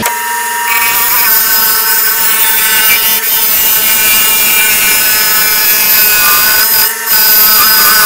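Wood lathe running with a steady motor whine while a hand-held turning tool cuts a spinning wooden handle blank, making a continuous scraping hiss as shavings come off. The cut lets up briefly about seven seconds in.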